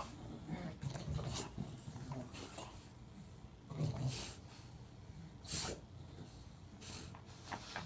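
English bulldogs at play making short breathy noises in bursts every second or so, the loudest about four seconds in and again about five and a half seconds in. It is rough play that sounds meaner than it is.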